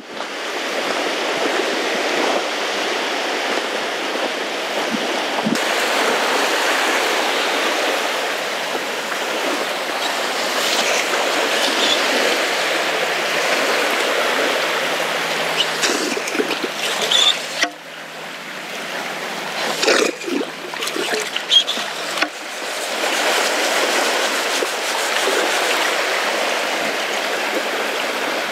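Shallow sea water washing steadily at a sandy shoreline, with a stretch of splashing and sloshing about two-thirds of the way through, from wading and working in the shallows.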